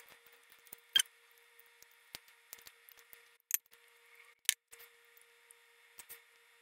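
Close-miked mouth sounds of eating roast chicken: wet smacks and clicks of chewing, a few of them sharp, about one, three and a half and four and a half seconds in.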